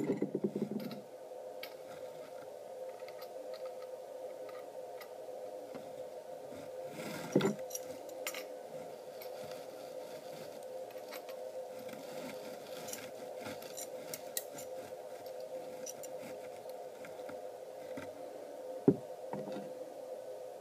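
Stainless steel pipe fittings and ball valves handled and screwed together by hand: sparse metal clicks and knocks, two louder ones about seven seconds in and near the end, over a steady hum.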